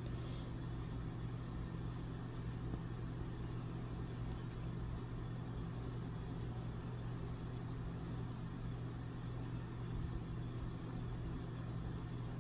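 Steady low hum that does not change.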